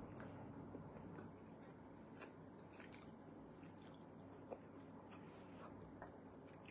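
Faint sounds of a woman eating soup from a spoon: soft chewing and mouth sounds, with a few small clicks, one a little louder about four and a half seconds in.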